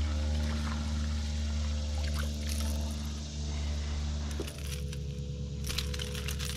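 A hooked smallmouth bass splashing at the surface as it is reeled to a kayak and lifted out, the splashes busiest in the second half, over steady background music.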